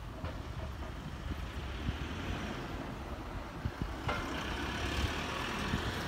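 Low rumble with wind buffeting the microphone; about four seconds in, a steady hiss sets in suddenly, as of a road vehicle passing close by.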